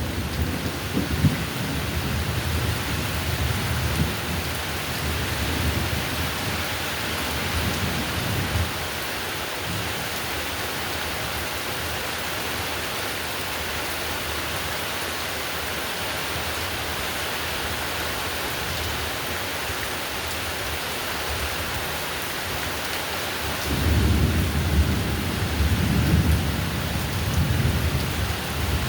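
Heavy rain falling in a steady hiss, with low rumbling thunder for the first eight seconds or so and again starting about 24 seconds in.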